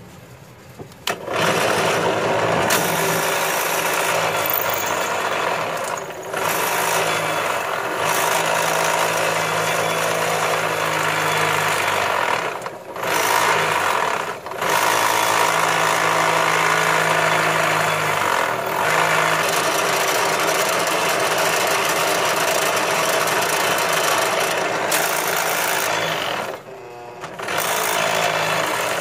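Drill press running, its twist bit cutting into a solid copper bar held in a vise. It starts about a second in and stays loud and steady, dipping briefly a few times.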